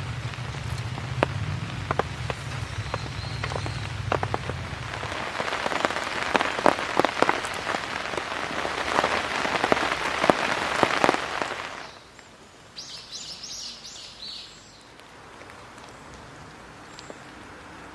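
Rain pattering on a polycotton TC tarp, with many sharp drop strikes that build in intensity, then the sound drops off abruptly about two-thirds of the way through to a much quieter background with brief high chirping.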